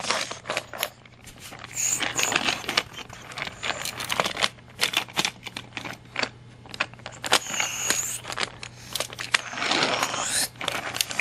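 Small hard toy train engines and cars clicking and clattering together as they are handled and swapped on the track, with a longer scraping rub about ten seconds in.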